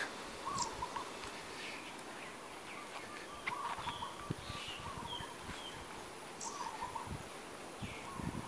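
Several birds chirping, with short warbled notes and brief high falling calls scattered through, over a faint steady outdoor hiss.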